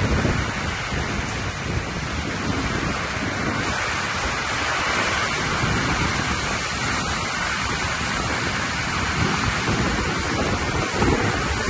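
Heavy rain pouring down in strong, gusting storm winds, which the speaker identifies as a microburst. Wind buffets the microphone in uneven low rumbles under a steady hiss of rain.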